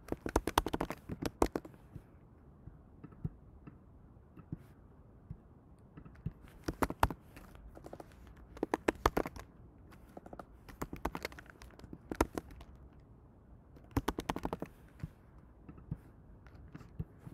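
Typing on a computer keyboard: about six short bursts of rapid key clicks with quieter pauses between them.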